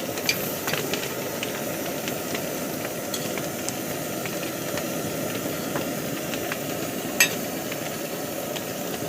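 Paratha sizzling steadily in a little oil on a flat griddle, just turned and oiled again, with a few light clicks and one sharper click about seven seconds in.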